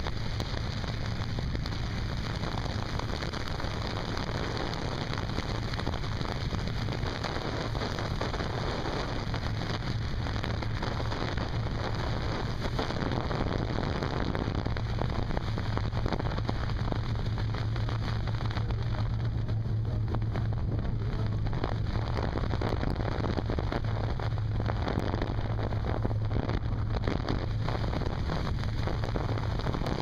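Steady rush of wind and splashing water past a moving motorboat, with the boat's engine droning low underneath.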